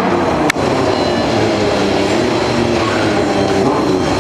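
A motorcycle engine running steadily, its pitch wavering slightly. There is one sharp click about half a second in.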